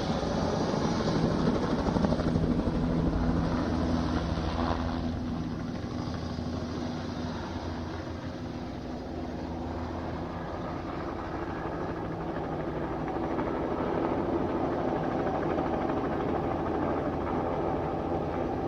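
Police helicopter overhead, its rotor chop running steadily. It fades somewhat for a few seconds midway, then grows louder again.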